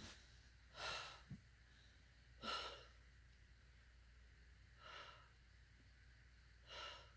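A person's breaths, four short, faint, hissing breaths about every two seconds, taken through the pain of a dystonic foot spasm.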